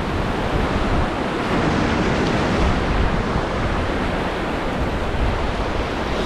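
Whitewater rushing steadily around a river raft, with wind rumbling on the microphone.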